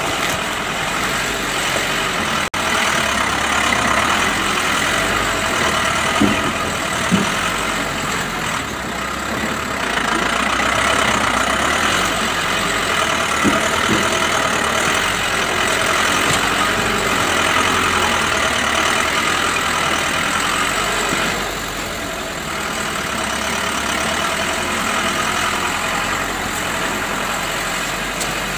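Truck engine running steadily as the vehicle crawls along a rutted, muddy dirt road, with a few brief knocks a few seconds in and again near the middle.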